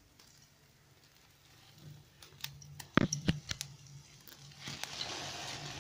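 A few sharp knocks and clicks of the camera being handled and set down, the loudest about three seconds in, then a steady hiss from about four and a half seconds in.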